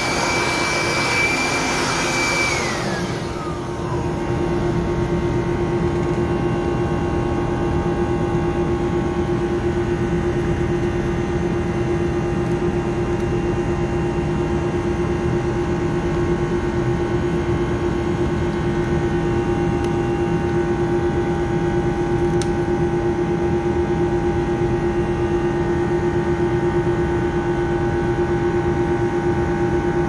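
Loud, steady ship machinery hum with a strong low tone throughout. Over the first few seconds a high electric-motor whine sits on top of it, then winds down in pitch and stops about three seconds in.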